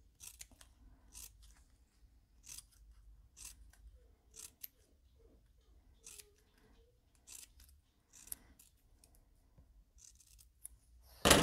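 Scissors snipping fringes into a thin strip of metallic foil: short, crisp snips roughly once a second. Near the end comes a single louder clack.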